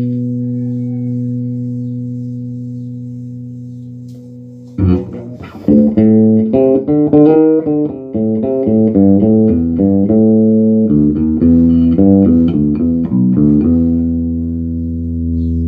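Electric bass guitar played through a Markbass Little Mark 58R bass amp, working again after repair of damage from being fed 230 V. A held note fades for about five seconds, then comes a quick run of plucked notes, ending on another held note.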